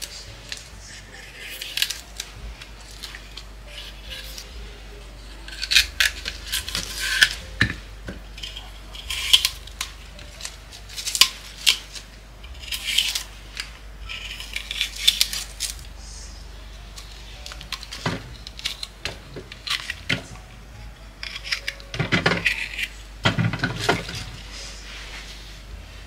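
Crisp green vegetable stems snapping into short pieces, which land with a light clatter in a stainless steel tray: scattered clusters of sharp, crisp snaps, with heavier knocks against the metal near the end.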